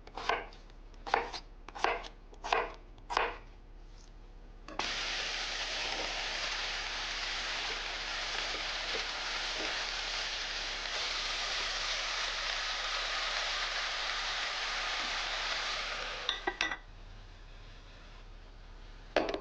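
About seven quick knife chops on a cutting board, then food sizzling steadily in a hot pan, starting suddenly about five seconds in and stopping abruptly near sixteen seconds.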